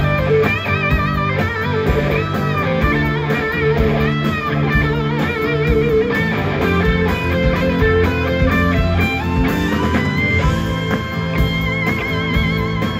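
Blues-rock band playing live, with a Fender Stratocaster electric guitar playing sustained lead notes with wide vibrato over the drums and the rest of the band.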